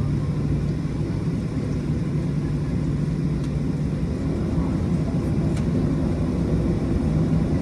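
Boeing 737 cabin noise: a steady low drone of the jet engines and airflow heard from inside the passenger cabin, with a constant low hum.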